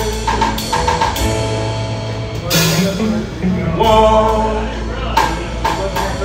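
Live blues band playing a slow ballad: electric guitar, bass and drum kit, with a man singing, and a cymbal crash about two and a half seconds in.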